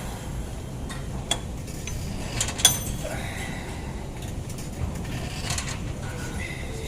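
Weight stack of a leg extension machine loaded to full weight, its metal plates clinking as they are lifted and lowered. The sharpest clink, with a brief ring, comes about two and a half seconds in, over a steady low hum.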